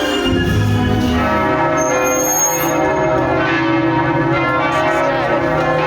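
Ringing bell tones, layered and sustained like chimes, carried in music.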